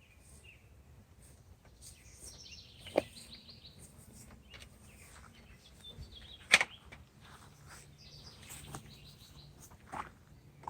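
A songbird singing a short run of falling notes, twice. Three sharp knocks come a few seconds apart, the loudest near the middle.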